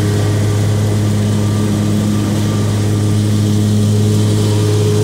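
Zero-turn riding mower's engine running steadily under mowing load, an even low drone that holds the same pitch throughout.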